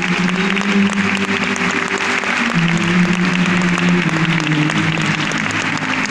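Acoustic guitar playing an instrumental passage of a song, its held notes shifting about two and a half seconds in, while an audience applauds over it.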